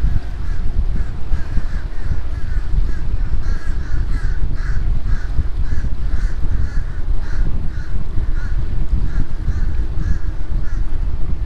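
A flock of crows cawing over and over, several birds overlapping at about two or three caws a second, over a loud, steady low rumble of wind and the moving boat.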